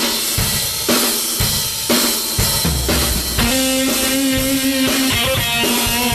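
Background music with a steady drum-kit beat, about two strikes a second; held melody notes come in about halfway through.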